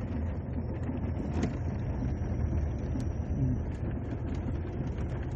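Pickup truck driving on a dirt road, heard from inside the cab: a steady low rumble of engine and tyres, with a couple of faint light knocks.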